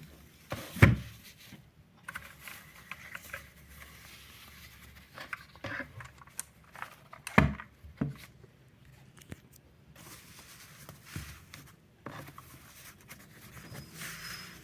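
A keyboard and its packaging being handled and unwrapped: rustling, crinkling and scraping with small clicks, and two sharp knocks, one about a second in and a louder one about seven and a half seconds in.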